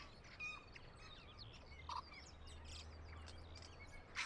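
Several wild birds chirping and whistling at once, faint, with many short rising and falling notes overlapping. A short lower note sounds about two seconds in, and a sharp click comes at the very end.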